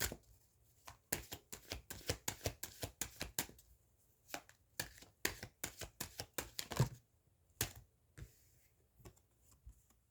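A deck of tarot cards being shuffled by hand: quick runs of crisp card flicks and taps in two bursts, thinning to a few scattered taps near the end.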